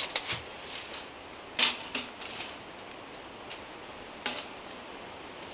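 Footsteps on a forest floor littered with dry twigs and bark, with a few sharp snaps and cracks; the loudest comes about a second and a half in, another near the four-second mark.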